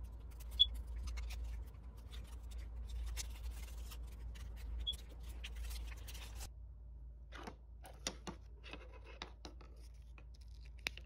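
Scissors snipping and trimming blue painter's tape stuck on a keyboard spacebar keycap: a run of quick small clicks and scratches for about six seconds, then only a few scattered clicks and handling sounds.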